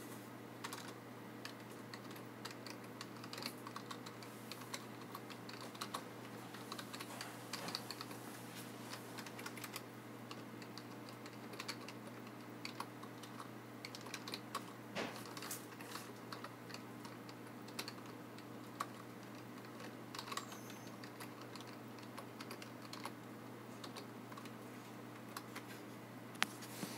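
Quiet, irregular typing on a computer keyboard, key clicks coming in short runs with pauses between.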